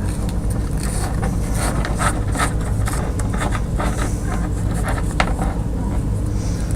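Scattered small clicks and light scrapes of wire and hand tools being handled during wire splicing, over a steady low hum.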